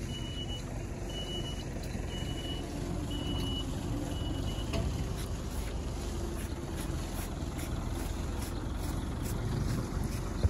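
A vehicle's reversing alarm beeping at one pitch about once a second, five half-second beeps, then stopping about four and a half seconds in, over a low steady rumble.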